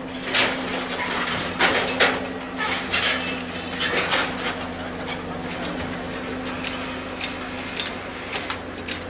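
Heavy machinery engine running steadily under irregular metallic clanks and knocks, the sound of track-restoration work on derailed goods wagons and rails.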